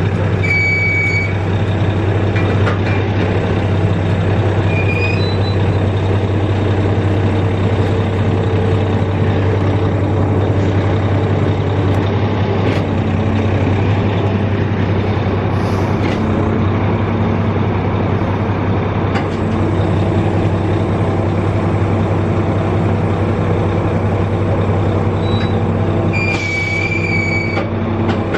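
Heavy earthmoving machine's engine running steadily with a deep, even hum. Brief high-pitched squeals come about a second in and again near the end.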